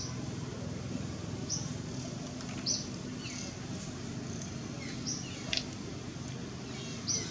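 Short, high-pitched chirps recurring every second or so over a steady low background hum, with one sharp click about five seconds in.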